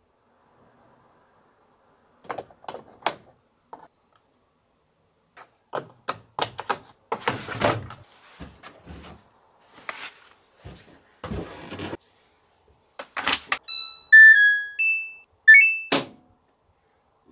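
Laundry being loaded into a front-loading washer-dryer: a series of knocks and thuds from the drum and door. Near the end come the machine's short electronic beeps and a rising chime as it is switched on and the start button is pressed.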